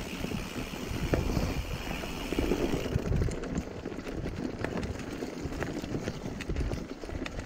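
Mountain bike rolling over a dry, leaf-covered, stony forest trail: tyres crunching through leaves and over stones, with frequent sharp knocks and rattles from the bike over a steady low rumble.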